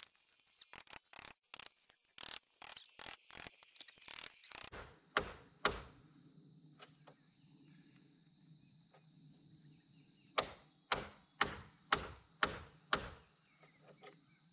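Hammer blows knocking out an anchor-bolt notch in the bottom plate of a wooden floor truss, where the notch falls on a metal gang-nail plate. A quick irregular run of knocks comes first, then two heavier blows, and near the end a steady series of seven strikes about half a second apart.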